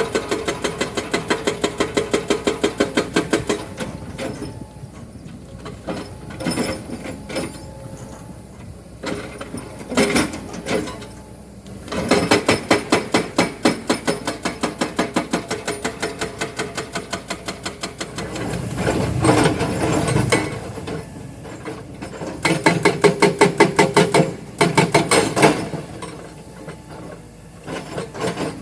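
Excavator-mounted hydraulic breaker hammering limestone rock in rapid runs of blows, each run lasting a few seconds, three main runs in all. The excavator's engine runs between them.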